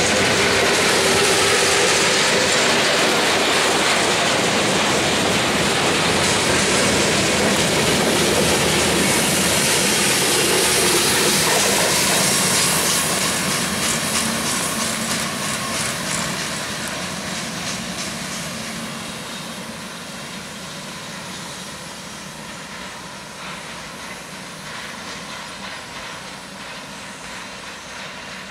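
Freight cars of a long freight train rolling past, the wheels clacking steadily over the rail joints. About halfway through, the end of the train passes and the sound fades gradually as the train moves away.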